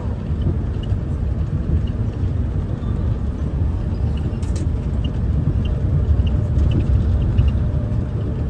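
Airport people-mover shuttle train running between stations, heard from inside the car as a steady low rumble.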